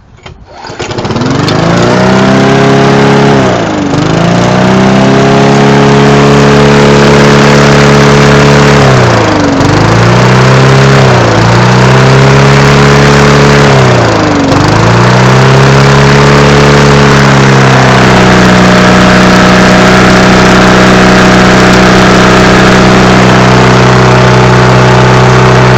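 Briggs & Stratton 3.5 hp Classic engine on a push lawnmower starting up and running. Its speed sags sharply and picks back up several times, then it settles into a steady run about two-thirds of the way through.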